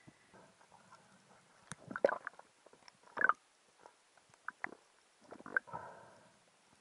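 Irregular underwater knocks, clicks and short scraping bursts from a spearfisher's gear moving against the camera housing, loudest about two seconds in and again just after three seconds.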